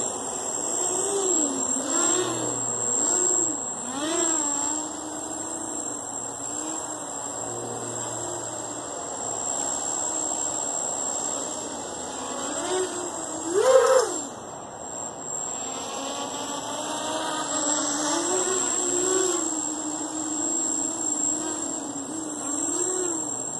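QAV250 quadcopter's Emax MT2204 brushless motors with 5040 bullnose propellers buzzing in flight, the pitch swinging up and down as the throttle is worked. About two-thirds of the way in, a sharp punch of throttle makes a louder, higher rise. A thin, steady high whine runs underneath.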